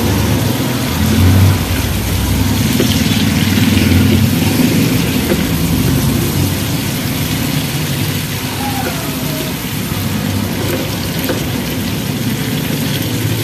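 Shrimp and tomatoes sizzling in a frying pan as they are stirred and scraped with a wooden spatula, over the steady low hum of an engine running.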